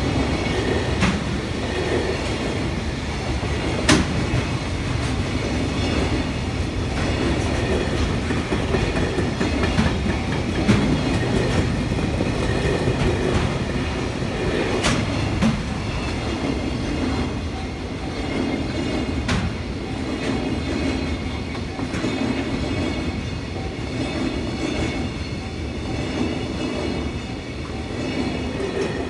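Container freight train running past at speed close by: a steady heavy rumble of wagon wheels with clickety-clack over the rail joints, loudest at the start. Sharp metallic clicks come about 4, 15 and 19 seconds in.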